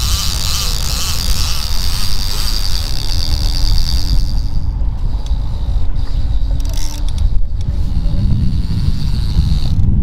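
Steady low rumble of the trolling boat's engine with wind and water noise, under the mechanical whir and clicking of a line-counter trolling reel. A high hiss fades out about halfway through.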